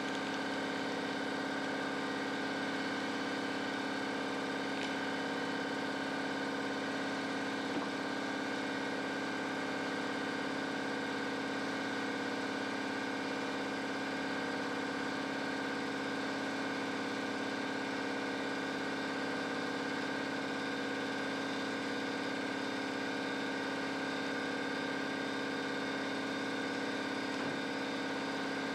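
Steady mechanical hum of a running motor, holding several constant tones, with a faint tick about eight seconds in.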